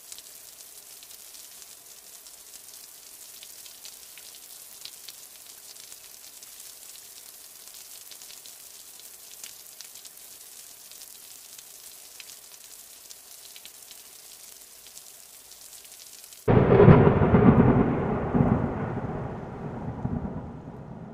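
Steady light rain hiss with scattered drop ticks. Near the end a loud thunderclap breaks in suddenly and rumbles, fading away, and the rain hiss cuts off as it starts.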